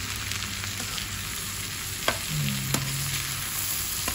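Strips of carrot, green bean, chayote and sweet potato sizzling in a hot metal pan as they are stir-fried and turned with a metal spatula. Two sharp clinks of the spatula against the pan come about halfway through.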